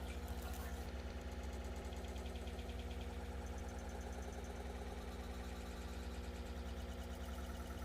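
A steady low hum with a few held tones above it, unchanging throughout.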